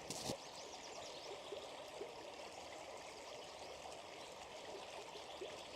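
Faint, steady sound of a flowing stream, running water trickling along.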